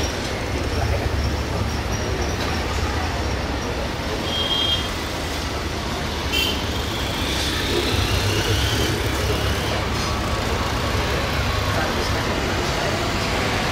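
Steady low rumble of distant jet airliner engines running at low thrust, mixed with road traffic noise. Two brief high chirps come about four and six seconds in.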